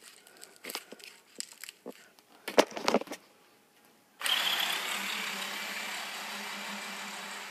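A few handling clicks and knocks, then about four seconds in an Axial SCX10 RC crawler's 55-turn brushed motor and gearbox start whirring at full speed on a 3S lipo, a sudden steady whine with tyre noise as the truck runs across a wooden floor.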